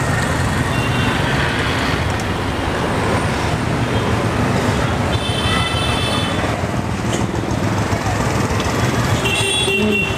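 Busy street traffic: a steady rumble of engines and road noise, with vehicle horns tooting briefly about five seconds in and again near the end.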